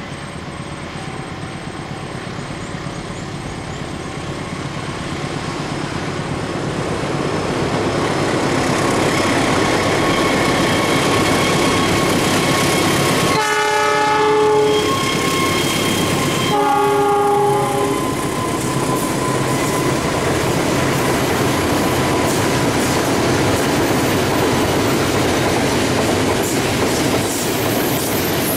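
Diesel-hauled train of Pertamina tank wagons approaching and passing, its noise growing over the first several seconds. As the locomotive goes by, about halfway through, it sounds its horn twice, each blast a little over a second long. After that comes a steady rumble of the wagons' wheels rolling past.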